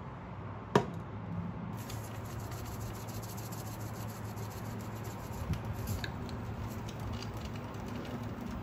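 A single sharp knock of cookware about a second in, then a long run of fast, fine scraping clicks as sesame seeds are dispensed from a small sesame bottle over a fried egg.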